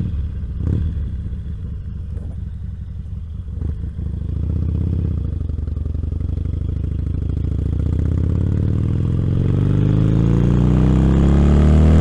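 Motorcycle engine pulling away and then accelerating, its pitch climbing steadily and getting louder through the second half, heard through a microphone inside the rider's helmet. A brief knock comes about a second in and another near four seconds.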